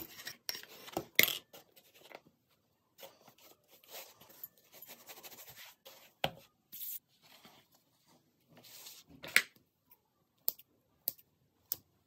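Hands rolling and shaping bread dough on a floured wooden board, in short rubbing and brushing strokes with gaps between them. Near the end come a few sharp snips of kitchen scissors cutting slashes into the top of the loaf.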